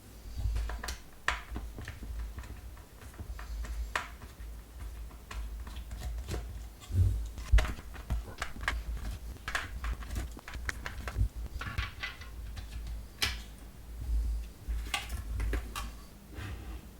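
Irregular clicks, taps and knocks of hard plastic housing parts being handled and turned over during a teardown of a Dyson air-purifier fan, with occasional low thumps of handling.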